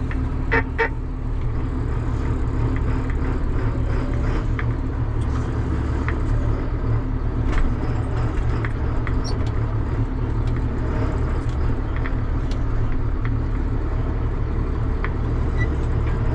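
Tractor engine running steadily, with sharp snaps from a CB radio every second or so: with the squelch turned down, the radio is picking up the pulses of a nearby electric fence charger.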